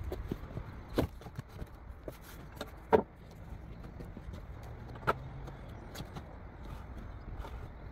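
Sharp wooden knocks of handling as a short apple log is set onto timber bunks and a chainsaw mill is laid on its guide board, the loudest knock about three seconds in, over a low steady rumble.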